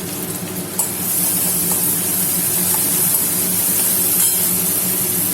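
Onion-tomato masala frying in oil in a pan, a steady sizzle that grows louder about a second in, over a low steady hum.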